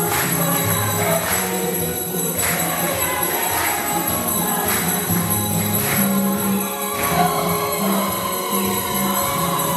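A church choir and congregation singing a hymn with a steady percussive beat about once a second, with hand clapping in time.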